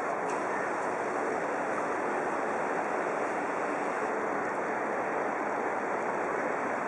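Water jetting from a hose laid over a sandbag flood wall and splashing into standing floodwater, a steady rushing splash that does not change. The hose is pumping water out from behind the barrier.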